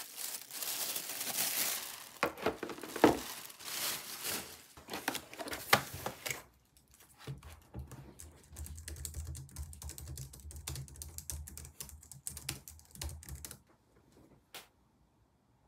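Packaging crinkling and rustling as a white wrapping sheet is pulled off a Logitech MX Keys Mini, then quick typing on its low-profile scissor-switch keys for about seven seconds, stopping a couple of seconds before the end.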